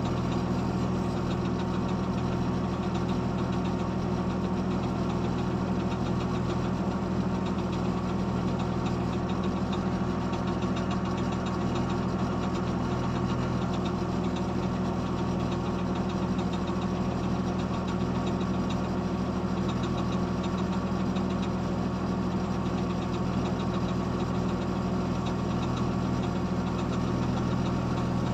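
Diesel engine of heavy road-work machinery running steadily at a constant speed, a low even hum with no revving or gear changes.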